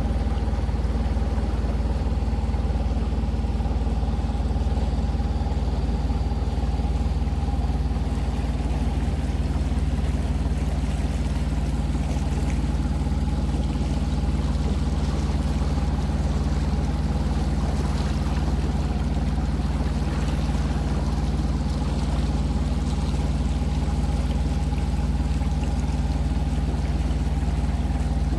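Ohlson 8:8 sailing yacht's engine running at a constant speed while the boat motors along, an even, unchanging drone.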